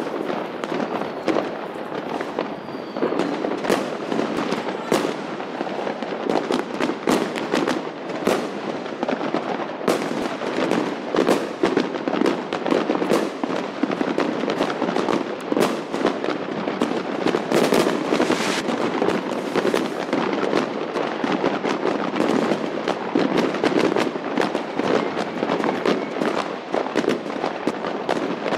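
Many fireworks and firecrackers going off at once across a wide area: a dense, unbroken crackle of bangs with no let-up.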